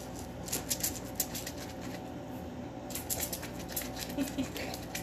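Metal vegetable corer scraping out the inside of a zucchini: quick, crisp scraping clicks in two spells, about half a second in and again from about three seconds in, over a steady low hum.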